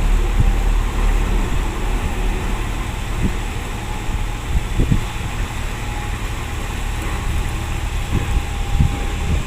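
Tugboat engine running with a steady low rumble, with a few short low thumps through it.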